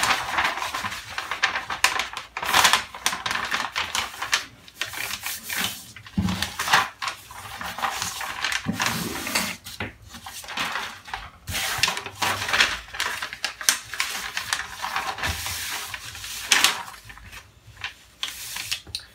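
Kraft pattern paper rustling and crinkling in irregular bursts as large sheets are handled, folded and smoothed flat.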